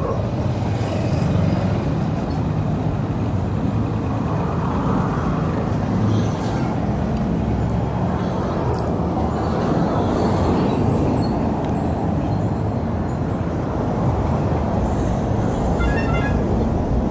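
Steady road traffic and motorcycle engine noise, with vehicles passing close by on a busy road, and a few short vehicle horn beeps near the end.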